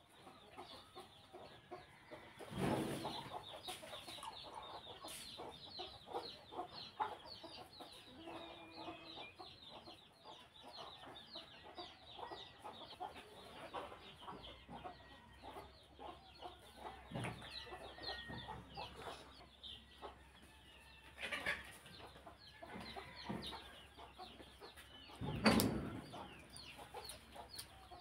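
Mango juice poured from a plastic bottle into a glass mug, a loud gush about three seconds in, over continual bird calling in the background. A sharp thump near the end.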